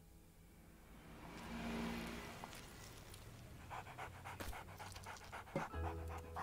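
A dog panting quickly and faintly, starting about three and a half seconds in, after a soft whoosh that swells and fades.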